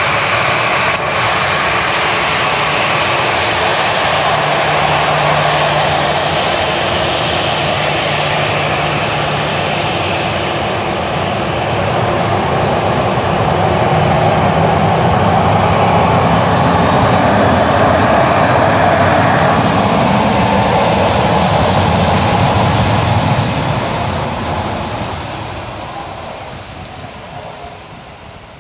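Boeing 737-800's CFM56-7B jet engines at taxi power as the airliner rolls past. The steady engine noise swells a little as it passes side-on, then fades over the last few seconds as it moves away.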